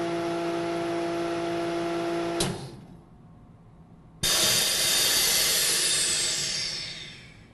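MVS 45X chamber vacuum sealer running a cycle: the vacuum pump hums steadily and stops with a click about two and a half seconds in. After a short lull while the seal bar seals the bags, air hisses loudly back into the chamber and fades out over about three seconds.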